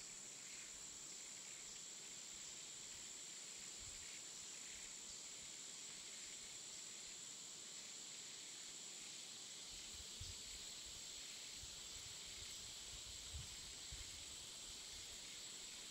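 Faint outdoor ambience: a steady high-pitched insect drone over a soft hiss, with a few low soft bumps on the microphone from about ten seconds in.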